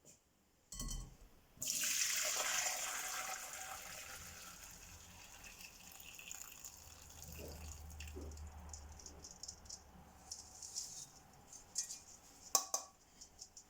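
Water running or being poured, starting suddenly and slowly fading away, with a knock just before it and a few sharp clicks near the end.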